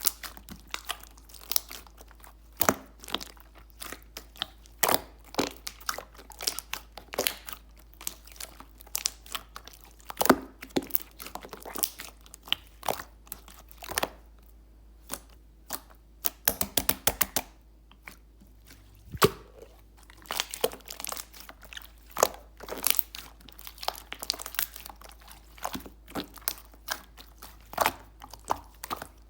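Clear slime being squished and pressed by hand, giving an irregular run of sharp clicks and pops, with two brief quieter pauses partway through.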